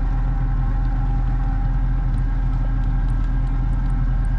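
Boat motor running steadily at low speed, its pitch even throughout.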